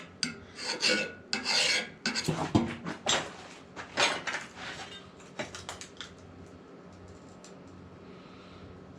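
Hand file scraping over metal in a run of quick, uneven strokes, fading to faint background sound about six seconds in.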